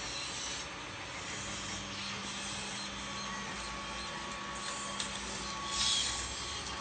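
Small electric motors running with a steady hum and whine over a background hiss, with a sharp click about five seconds in and a brief hiss just before six seconds.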